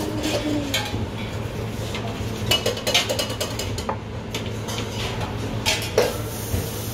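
Ceramic plates and bowls clinking and knocking as they are set down and moved on a wooden serving board, with a run of clinks about halfway through and a sharp knock about six seconds in, over a steady low hum.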